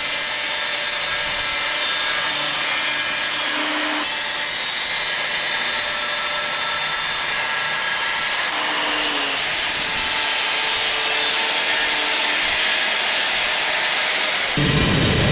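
Handheld power tool running on steel, steady, with brief breaks about four and nine seconds in; near the end a louder low rumble comes in.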